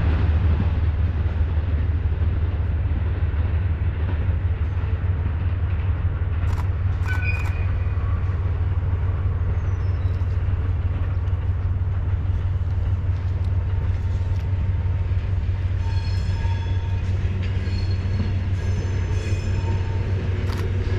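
Sangi Railway ED45 electric freight locomotive moving slowly through the yard during coupling work: a steady low rumble, with faint high squeals about seven seconds in and again from about sixteen seconds on.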